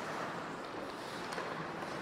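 Ice hockey rink noise: skates scraping across the ice in an even hiss, with a few faint clicks.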